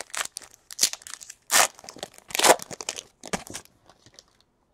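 A shiny trading-card pack wrapper being torn open and crinkled by hand. It makes a run of irregular crackling rustles, loudest about a second and a half and two and a half seconds in, and dies away before the end.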